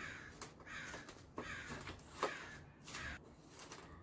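Faint short scrapes and pats of hands shaping loose soil in a plastic tray, mixed with a string of short bird calls, about seven in four seconds.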